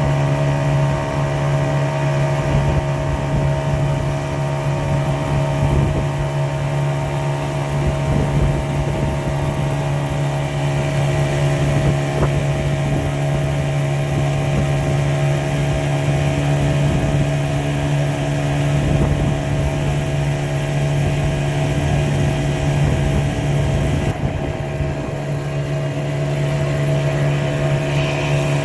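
Small fishing boat's engine running at a steady cruising speed, a constant hum with the hull's water rush under it. It eases off a little about 24 seconds in, then picks up again.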